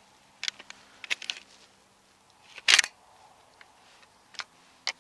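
A few short, irregular rustles and clicks, the loudest about two and three-quarter seconds in.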